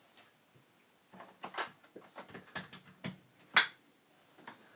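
A run of irregular sharp clicks and knocks from hands working on the Amiga 2000 as it is about to be powered on, starting about a second in; the sharpest click comes about three and a half seconds in.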